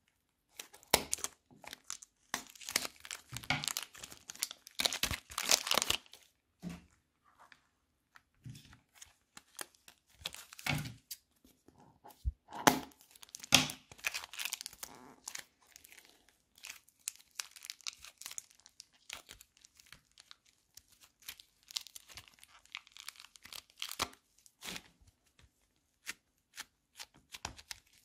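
Crunchy floam slime being cut, squeezed and stretched by hand: irregular crackles and pops, densest a few seconds in, then sparser.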